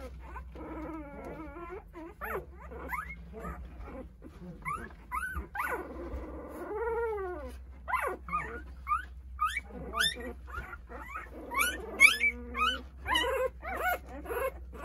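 A litter of eight-day-old Jindo puppies whimpering and squealing, with many short rising-and-falling cries overlapping. The cries grow busier and louder about halfway through. They are newborn puppies crying for their absent mother.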